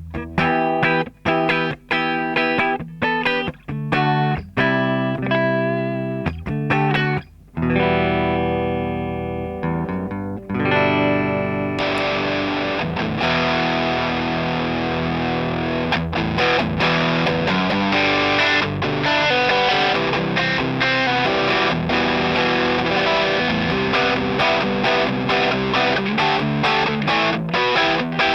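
Electric guitar played through a Night Drive overdrive pedal, a Love Pedal Eternity-style circuit, at first in separate picked notes and chords with short breaks and a held chord about eight seconds in. From about twelve seconds in it becomes continuous, denser and brighter, more heavily driven playing.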